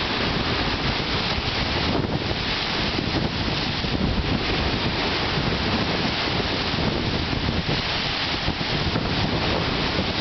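Strong gusty wind buffeting the microphone with a heavy, steady rumble, over waves of a wind-whipped lake breaking and splashing on a gravel shore and against a log dock.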